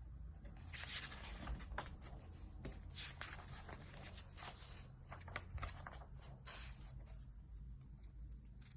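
Faint, irregular scraping and rustling with scattered light clicks: small objects being handled by hand.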